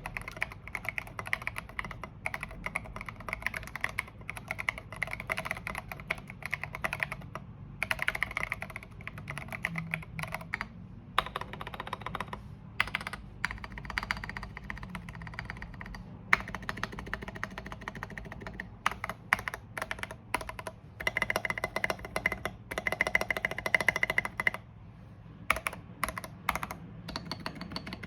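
Anne Pro 2 mechanical keyboard being typed on fast, in long runs of rapid key clicks with a couple of brief pauses.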